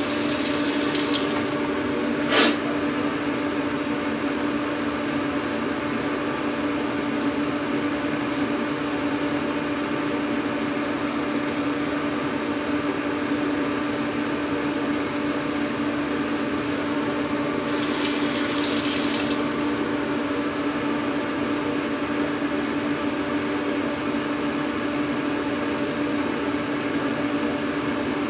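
Bathroom tap running briefly, stopping about a second in and running again for about two seconds past the middle, over a steady electric hum with a low tone. One sharp click about two seconds in.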